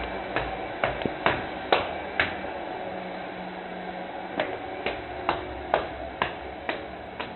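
Footsteps climbing a staircase: sharp, evenly paced steps about two a second. They break off for a couple of seconds midway, then carry on.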